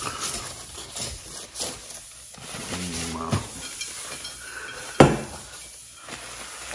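A wipe rubbing and scrubbing over a kitchen countertop, and about five seconds in a stainless-steel tumbler set down on the counter with one sharp clack.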